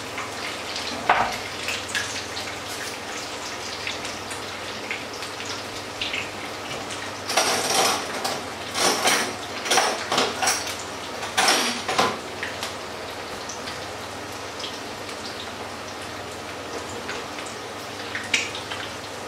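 Hot oil sizzling and crackling steadily around patties shallow-frying in a pan, with a sharp metal clink of a spatula about a second in and again near the end. For several seconds around the middle there is a louder clattering of kitchen utensils and dishes.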